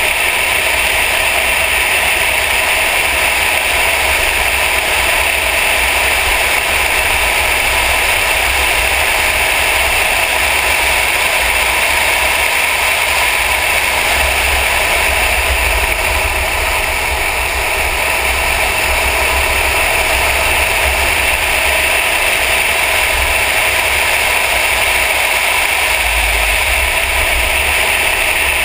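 Mercedes-Benz E63 AMG driving at speed on a track, heard from a hood-mounted camera: a steady rush of wind and road noise over the engine, with no rise or fall in engine pitch.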